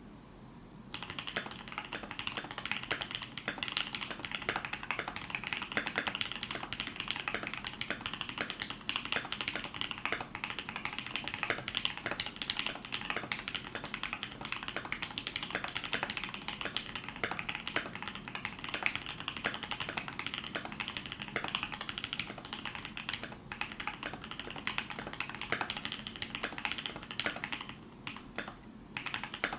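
Fast, continuous typing on a KBD75v2 mechanical keyboard with an aluminium plate, case foam and NK Dry Red linear switches lubed with 205g0 and filmed with Deskeys films. A dense stream of keystrokes starts about a second in and thins briefly near the end.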